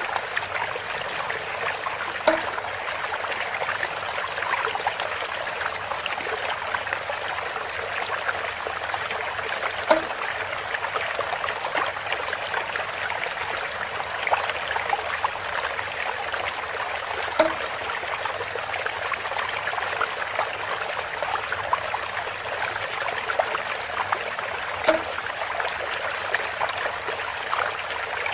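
Water trickling steadily through a bamboo spout, with a short knock about every seven and a half seconds, four times.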